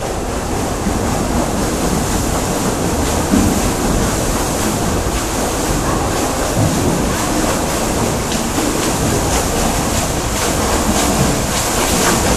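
Steady rushing water noise in an indoor lap pool, with a swimmer's front-crawl strokes splashing as he swims a length.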